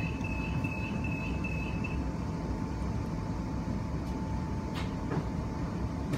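Interior running noise of an Adelaide Metro electric train: a steady rumble with a constant thin whine. A rapid high-pitched beeping runs until about two seconds in, and a couple of faint clicks come near the end.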